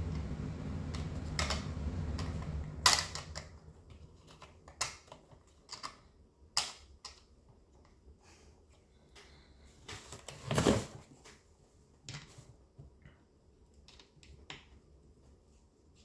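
Scattered light clicks and taps of plastic and metal as parts of a Stihl MS250 chainsaw's rear handle and shroud are handled and fitted by hand, with a duller knock about ten seconds in. A low steady hum fades out in the first three seconds or so.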